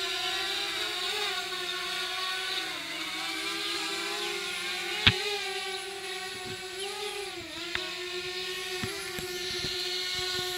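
DJI Spark quadcopter's propellers whining steadily, the pitch wavering up and down as it descends to land. A single sharp click sounds about five seconds in.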